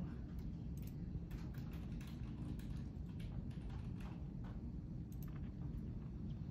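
Computer keyboard typing: scattered, irregular key clicks over a steady low hum.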